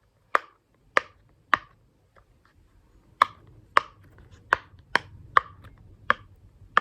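Silicone pop-it fidget toy having its bubbles pressed one by one: about ten sharp pops, roughly two a second, with a short pause after the first three.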